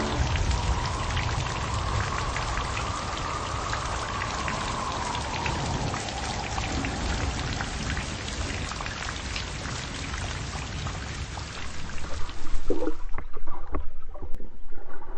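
Steady rain patter, an even hiss dotted with small drop ticks. About thirteen seconds in it gives way to louder, muffled underwater sloshing and thumps.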